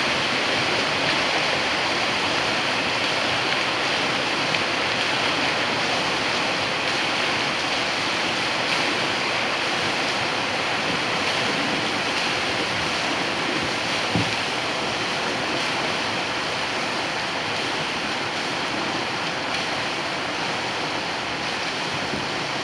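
River water rushing steadily over a shallow rapid and low weir.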